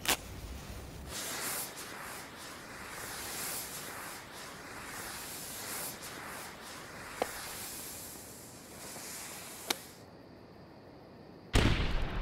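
A firework fuse fizzing with a steady hiss as it burns and throws sparks, with two sharp cracks a few seconds apart. Near the end, loud music with a fast beat comes in.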